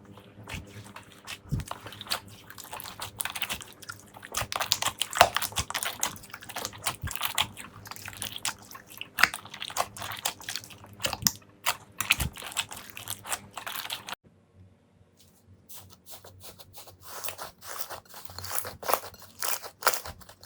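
Slime being handled, with rapid crackling and crunching pops. The sound drops abruptly about 14 seconds in, then the crackling picks up again.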